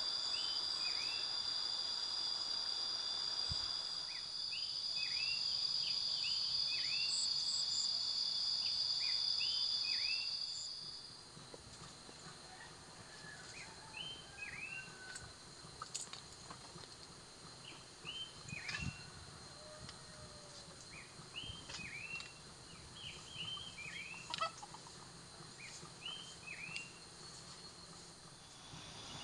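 A steady high insect drone for about the first ten seconds, which then stops, and small birds giving short repeated chirps in little groups throughout. A few faint clicks.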